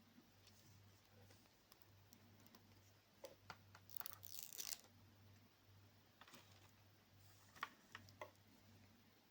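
Faint handling noises from unboxing a smart watch: a few light clicks and taps, and a brief rustle of packaging about four seconds in, over a low steady hum.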